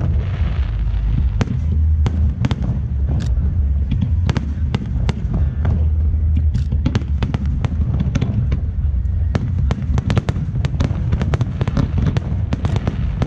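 Aerial fireworks shells bursting in a dense barrage: a constant mass of low booms with many sharp pops and crackles over it.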